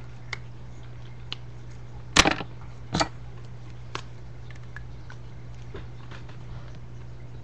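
A few light clicks and two louder knocks, about two and three seconds in, over a steady low electrical hum.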